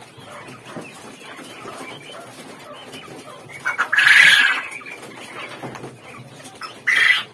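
Caged quail calling: two loud calls over low background noise, the first about four seconds in and lasting nearly a second, a shorter one near the end.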